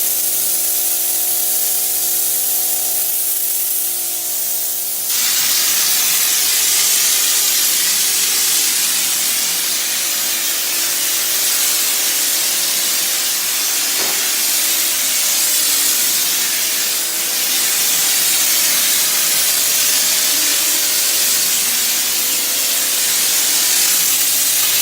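Air-driven popcorn-texture hopper gun spraying, a steady rushing hiss of air and texture. It starts as a thinner high hiss over a steady hum, then about five seconds in opens up suddenly into a louder, fuller hiss that holds on.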